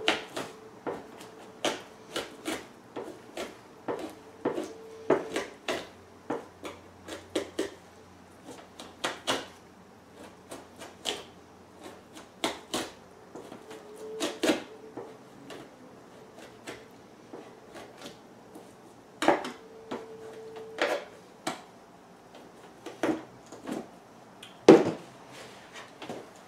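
Two-handled fleshing knife scraping fat and flesh off a beaver pelt stretched over a fleshing beam, in short repeated strokes about one to two a second with brief pauses. A louder knock comes near the end.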